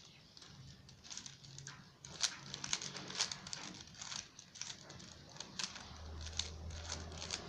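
A plastic 3x3 Rubik's cube being turned by hand: a quick, irregular run of clicks and rattles as its layers are twisted, getting busier after about two seconds.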